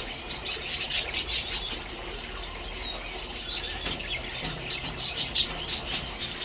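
Small cage birds chirping, with clusters of quick high calls coming and going.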